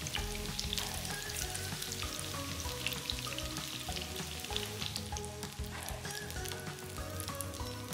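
Spiral dough rolls frying in shallow vegetable oil in a pan: a steady sizzle with scattered crackles.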